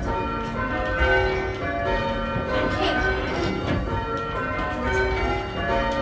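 Church bells rung in called changes, pulled by hand on their ropes: a steady, continuous sequence of overlapping bell strikes of different pitches, heard from the ringing chamber beneath the bells.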